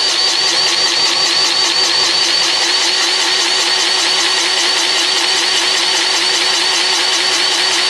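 Powered grease gun running steadily as it pumps grease into a fitting on a truck's drive shaft, its pump making a fast, even pulsing.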